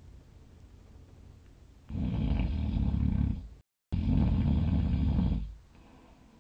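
A sleeping person's loud snore, starting about two seconds in and lasting about three and a half seconds. It is cut midway by a split-second dropout to dead silence, then fades back to faint breathing and room noise.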